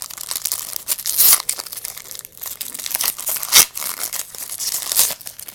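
A trading-card pack wrapper being torn open and crinkled by hand, a run of crackling rips with two louder tears, about a second in and midway.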